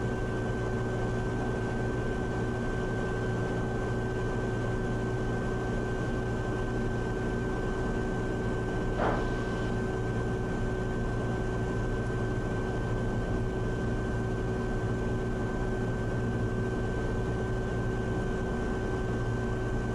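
Cirrus SR22's six-cylinder piston engine idling steadily with the propeller turning, a constant drone with a steady high whine over it.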